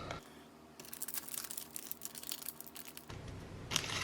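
Foil wrapper of a trading-card pack crinkling as it is torn open: a quick run of small crackles, with a louder crinkle near the end.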